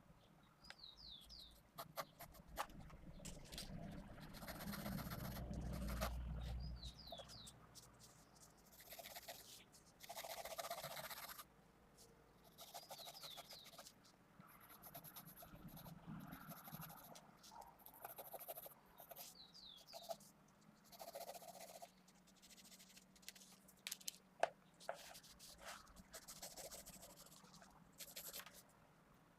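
Graphgear 500 mechanical pencil with 2B lead scratching over paper in short strokes and longer shading passes, with small clicks. A low handling rumble comes about four to seven seconds in.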